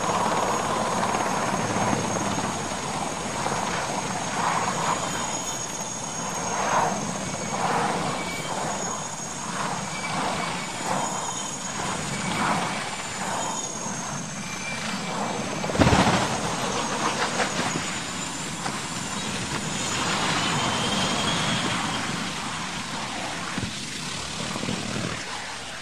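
Military helicopter running with a high turbine whine and a regular rotor beat, then a single loud crash about sixteen seconds in as it hits the ground, followed by continuing rotor and wreckage noise that slowly dies down.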